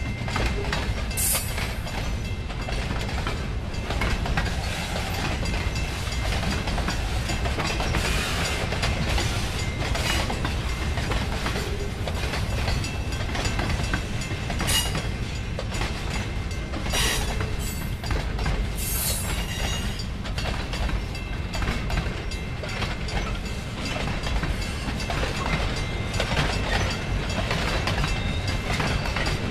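Freight train of boxcars rolling past close by: a steady low rumble of the cars, with irregular clacks of the wheels over the rail joints and a couple of brief high squeals.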